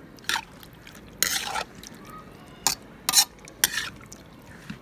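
Steel ladle scraping and clanking against a large metal karahi while raw chicken and tomato pieces are stirred and mixed: about five separate scrapes, the one about a second in lasting longer.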